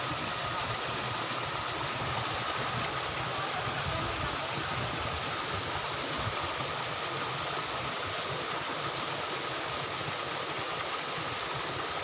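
Water rushing steadily in a stream or small waterfall, an even hiss with a faint steady high tone above it.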